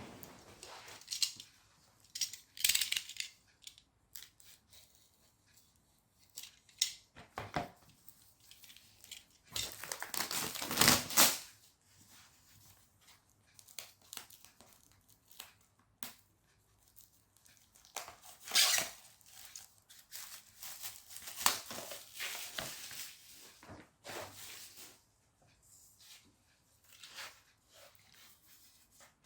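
Plastic packaging crinkling and tearing in irregular bursts as kit parts are unwrapped, loudest about ten seconds in.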